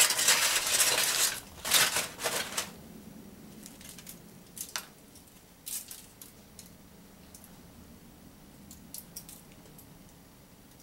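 Paper sandwich wrapper rustling and crinkling loudly as a sub is unwrapped and handled, for about the first two and a half seconds. After that only faint scattered rustles and soft clicks while the sandwich is lifted and bitten.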